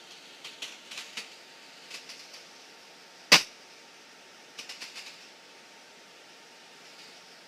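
Small clicks and taps over a steady hiss in the cockpit audio. They come in quick groups near the start, about two seconds in and about five seconds in, with one sharp, much louder click a little past three seconds.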